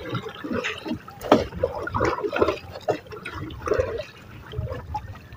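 Seawater sloshing and trickling against the side of a small outrigger boat as a pole is worked in the water, with a sharp knock about a second in.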